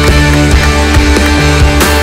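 Rock music with a steady beat, bass and drums.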